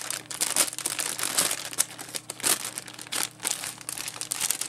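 Clear plastic bag crinkling and crackling irregularly as it is handled.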